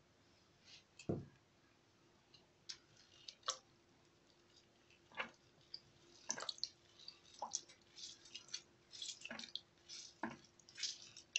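Lemon halves squeezed by hand over a knife blade, the juice dripping and spattering into a bowl of pickling liquid: faint, scattered drips and small squelches that come thicker from about six seconds in. A soft thump about a second in.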